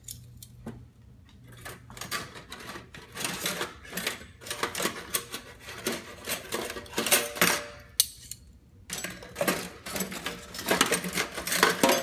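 Metal cutlery clinking and clattering against itself and a stainless-steel sink as spoons are picked out of a pile of knives, forks and spoons: many irregular clinks, a few ringing briefly.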